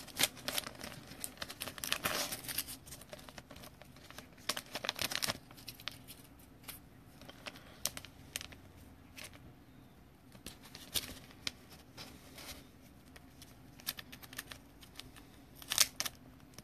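A clear plastic bag crinkling and crackling in short, irregular bouts as a folded trading-card booklet is worked into it. The loudest crackle comes near the end.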